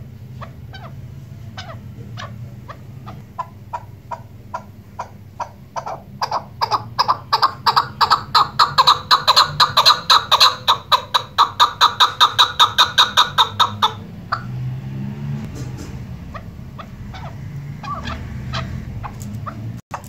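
Chukar partridge calling: a steady run of short clucking notes, about three a second, faint at first, then growing loud about six seconds in and stopping abruptly near fourteen seconds. Softer, lower sounds follow.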